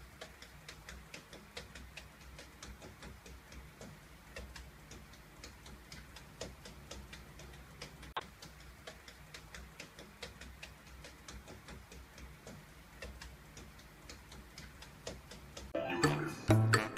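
Faint, fast, evenly spaced ticking over a low hum. Music starts near the end.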